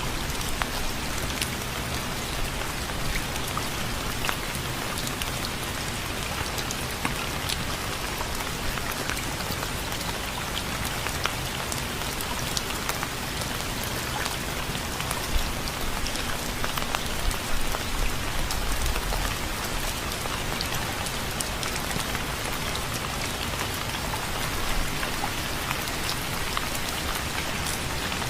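Steady rain falling on a surface, an even hiss dotted with the ticks of individual drops.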